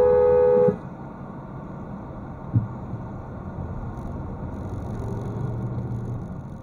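Car horn held on a steady two-note blast that cuts off suddenly under a second in. After it comes a low engine and road rumble inside the car, with a single thump about two and a half seconds in.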